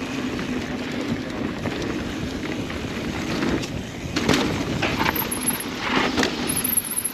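Mountain bike rolling fast on a dirt trail: steady tyre noise and rattle, with two sharp knocks about four and six seconds in as the bike jumps a small gap.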